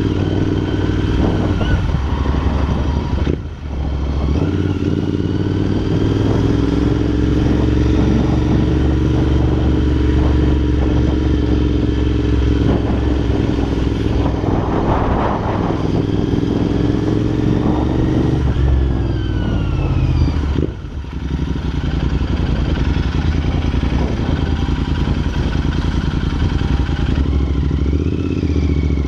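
Royal Enfield INT650 parallel-twin running through Red Rooster aftermarket exhausts while riding, the engine note holding steady for long stretches and dipping briefly twice, about 3 seconds in and about 21 seconds in. Wind buffets the bike-mounted microphone.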